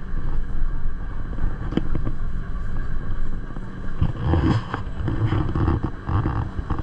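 Gornergrat rack railway train running with a steady low rumble. It gets louder and more uneven from about four seconds in.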